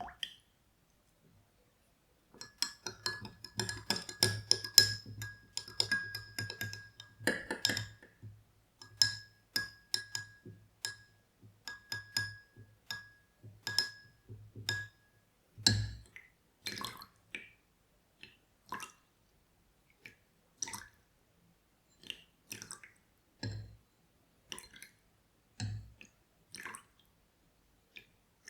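Water dripping and splashing close to the microphone, with small glassy clinks; busy and quick from about two seconds in, then thinning after about sixteen seconds to scattered single drips.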